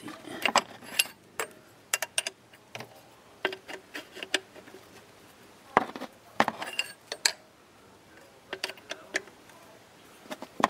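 A hand wrench clicking and clinking in irregular strokes against the metal fitting of a power steering high-pressure hose as the fitting is worked loose.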